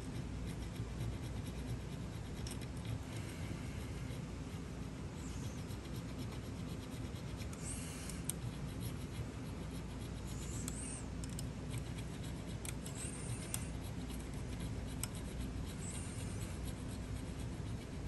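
Small steel hand file with teeth on its edge, drawn across the bit of a brass barrel key held in a vise to cut a ward slot: faint scraping strokes every two or three seconds over a steady low hum.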